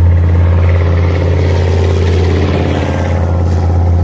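A Leopard 1-type tracked armoured vehicle drives past over muddy ground. Its diesel engine runs with a steady deep drone that swells briefly about halfway through as it goes by.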